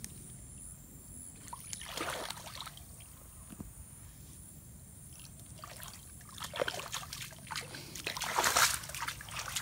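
Muddy water splashing and sloshing as a barefoot boy wades and grabs with his hands in a shallow puddle. One splash comes about two seconds in, then a run of splashes in the last few seconds, the loudest near the end.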